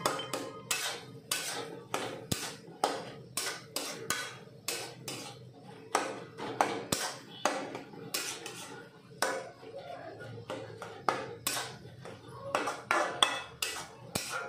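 Metal spatula scraping and knocking against an aluminium kadai as a thick egg and vegetable mash is stirred, in quick irregular strokes about two to three a second.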